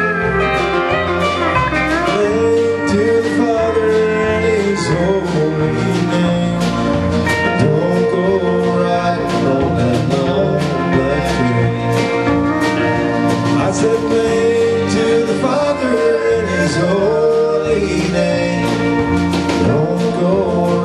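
Country band playing an instrumental break: a lead line with bending notes over bass and a steady drum beat.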